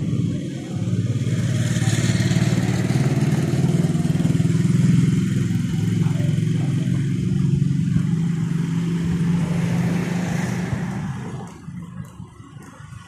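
A motor vehicle engine running steadily, fading away near the end.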